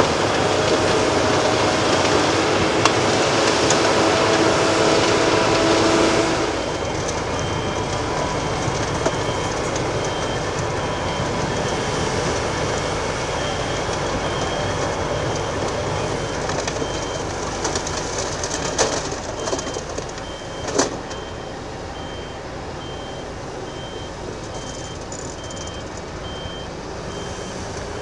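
Heavy earthmoving machinery running, loud for the first six seconds or so and then quieter. From about seven seconds in, a reversing alarm beeps steadily.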